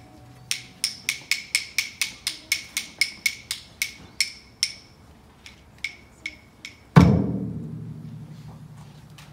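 Percussion played by a class of children: sharp, ringing knocks at about five a second for about four seconds, fading, then a few sparse softer ones, then one loud low hit about seven seconds in that rings away over about two seconds.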